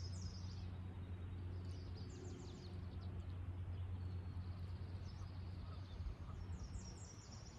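Faint birdsong: a few short runs of quick, high chirps, near the start, around two seconds in and near the end, over a steady low background hum.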